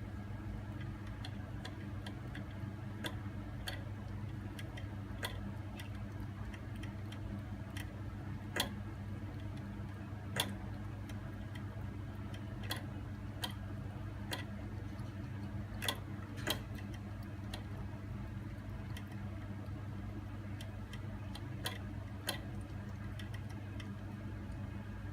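Small, sharp clicks at irregular intervals, a few louder ones among them, from a Scottish Fold kitten feeding, over a steady low hum.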